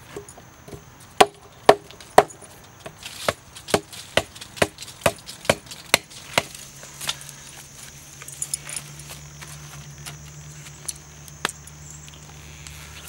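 A run of sharp chopping knocks: three loud strikes, then a steady series of about two a second that thins out after about six seconds, as with a blade cutting down onto wood. A low steady hum comes in about halfway, over a faint high whine.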